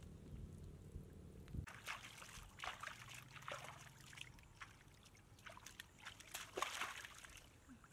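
Hands splashing and sloshing in shallow muddy water in short, irregular bursts, groping in the mud for fish. A low steady hum comes first and stops about a second and a half in.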